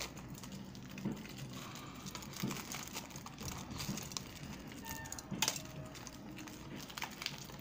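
Faint rustling and crinkling of plastic shrink wrap on a trading-card tin as it is handled and slit open with a cutter, with a few small clicks.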